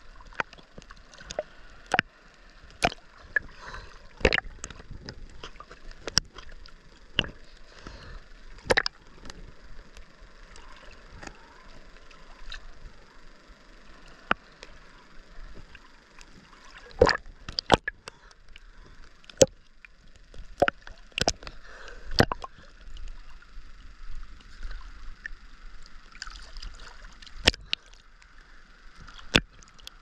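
Sea water sloshing and lapping at a waterproof camera held at the surface, with irregular sharp splashes and pops as small waves slap against it.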